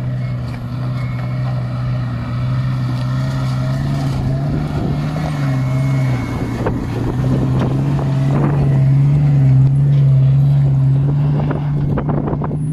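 Jeep Cherokee XJ's engine running under load as it climbs a rocky obstacle. The revs dip about six seconds in, then climb, loudest around nine to ten seconds in, with scattered knocks from about four seconds on.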